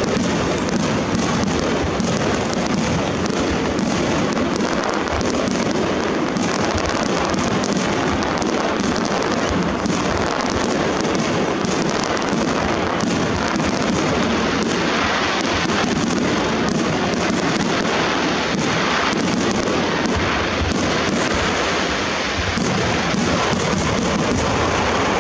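Grand star mine fireworks finale: a continuous rapid-fire barrage of aerial shells, the bursts and crackling stars overlapping into a steady loud din that is cut by countless sharp reports.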